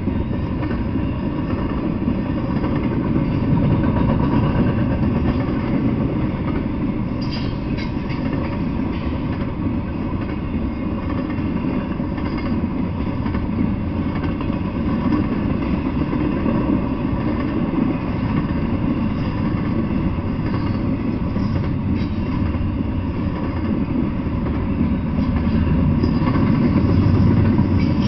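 Double-stack intermodal freight train rolling past: a steady, loud rumble of steel wheels on the rails and the well cars passing. A few brief sharp clicks come about seven seconds in and again near the end.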